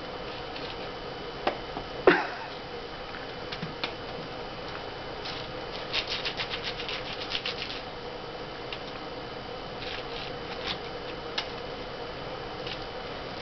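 Wooden window-shutter slats tapped and knocked by a cat's paw: scattered light clicks, one sharp knock about two seconds in, and a quick rattling run of clicks around the middle, over a steady room hum.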